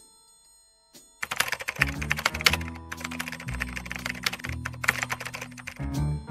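Computer-keyboard typing sound effect, rapid clicking keystrokes, over background music whose bass notes come in about two seconds in.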